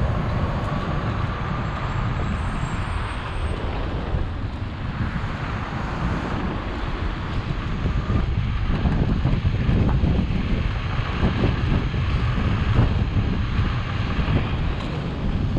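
Wind rushing over the microphone of a chest-mounted action camera on a moving electric scooter, a steady deep rumble with road noise.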